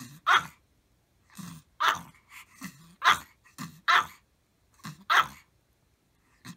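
A small Maltese dog barking repeatedly: about five sharp, high barks roughly a second apart, each led by a brief low growl.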